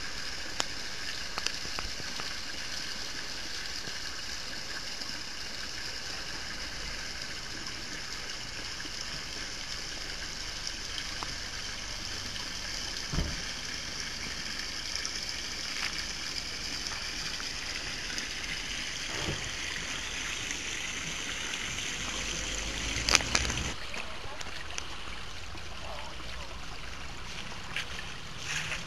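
Water running from a spout in a stone wall and splashing steadily into the small basin below. A few short thumps break through, the loudest about 23 seconds in.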